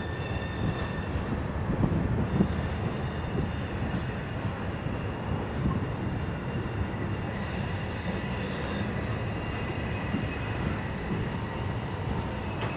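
Loaded open hopper cars of a freight train rolling slowly through a curve: a steady rumble of wheels on rail, with high-pitched wheel squeal holding through most of it and a couple of louder clanks about two seconds in.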